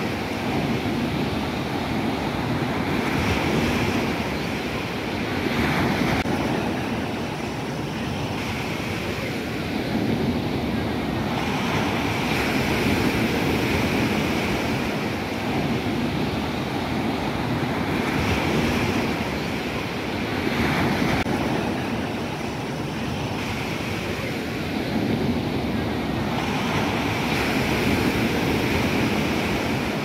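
Surf from a rough sea breaking and washing up a sandy beach. The noise swells and falls back every few seconds as each wave comes in.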